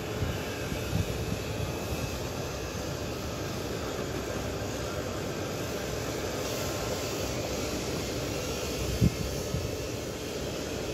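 Steady low rumble of outdoor background noise, with one brief thump about nine seconds in.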